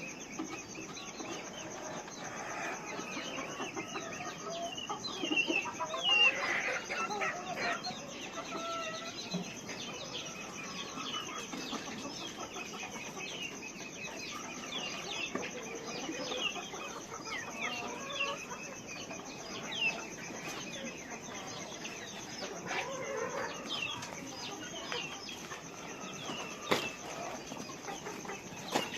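A large flock of farmed chickens calling together: many overlapping clucks and short high chirps, with a steady high-pitched whine underneath.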